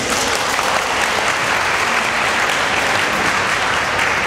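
Audience applauding: a steady clapping of many hands.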